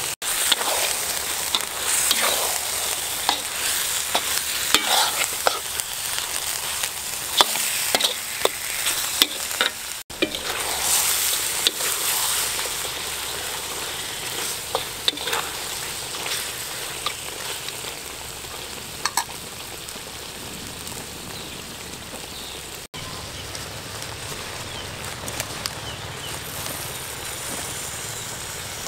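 Frog meat sizzling in a wok while a metal spatula stirs it, scraping and clicking against the pan. The clicks and scrapes are busiest in the first half and thin out later, leaving a steady sizzle.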